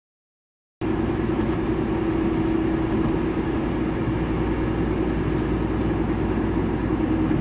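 Vehicle engines running steadily: a constant hum over a low rumble, starting abruptly about a second in.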